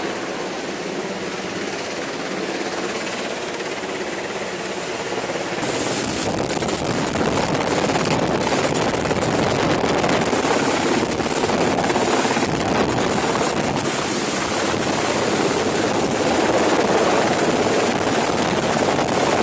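MH-60 Jayhawk helicopter hovering close overhead, its rotor and downwash making a loud, steady rush on the camera microphone. The noise grows louder and harsher about six seconds in.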